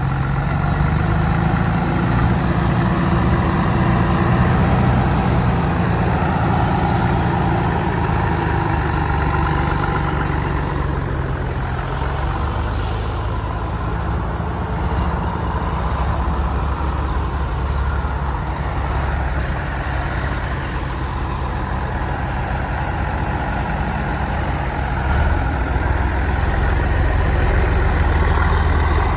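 A heavy truck's diesel engine running. Its pitch drifts over the first ten seconds, then settles lower and steadier. A brief high hiss comes near the middle.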